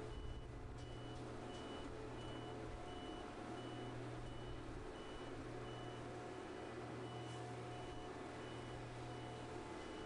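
Repeated warning beeps from a bridge launching gantry at work, a short high tone about twice a second, over a steady low machinery hum.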